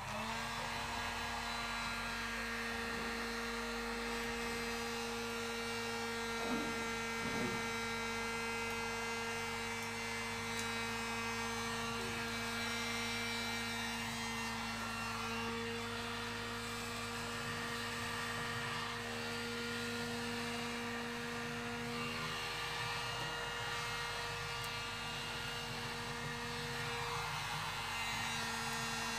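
Heat gun switched on and running steadily, its fan motor giving an even hum, while it warms vinyl wrap film along a hood edge.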